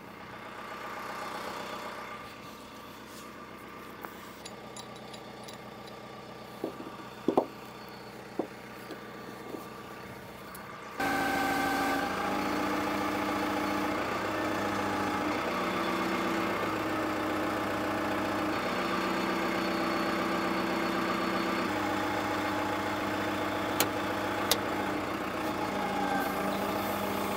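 Diesel engine of heavy construction machinery running. It is faint with a few knocks for the first part, then suddenly much louder about eleven seconds in, holding steady with occasional step changes in pitch.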